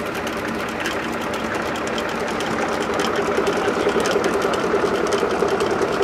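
UTB 1010 DT 4x4 tractor's diesel engine running steadily, growing a little louder about halfway through.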